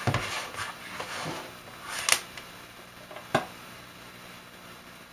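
A few sharp clicks and knocks of small objects being handled on a work surface, the loudest about two seconds in and another about a second later, over faint steady room hum.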